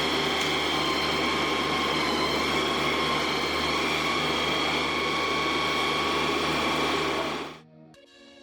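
A machine running steadily: a low motor hum with a steady whine over mechanical noise, cutting off abruptly near the end.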